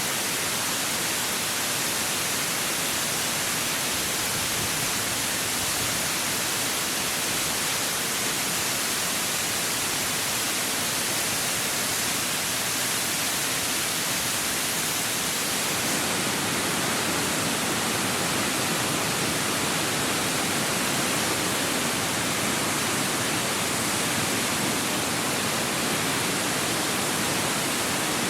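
Mountain waterfall: a steady rush of falling water. About halfway through, the sound turns fuller and deeper.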